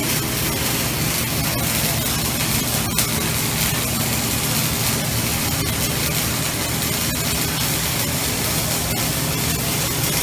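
Automatic arc welding head running a girth weld on a pipe joint: a steady hiss with scattered crackles, over a steady low machinery hum.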